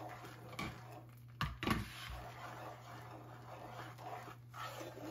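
A wooden spoon stirring brown sugar and cinnamon into melted butter in a skillet: faint scraping in the pan, with a couple of knocks about a second and a half in, over a steady low hum.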